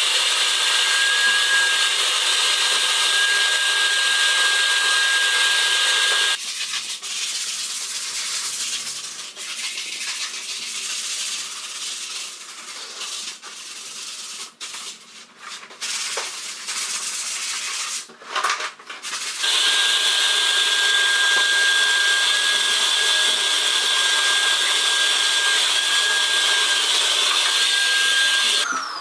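Canister vacuum cleaner running steadily with a thin high whine, sucking crumbled old foam off a bare car headliner board. It cuts out abruptly about six seconds in. A quieter stretch of irregular rubbing and knocks follows. The vacuum comes back abruptly about two-thirds of the way through.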